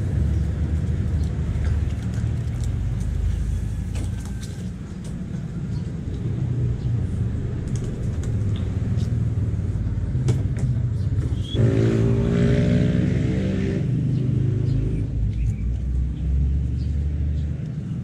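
Low rumble of road traffic, with one engine passing loudest about two-thirds of the way through, its note a stack of steady tones over a hiss.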